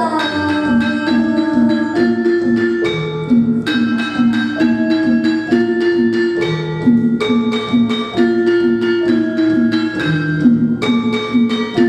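Javanese gamelan playing an instrumental passage in pelog tuning: bronze metallophones and kettle gongs struck in an even, repeating pattern of about three notes a second, each note ringing on.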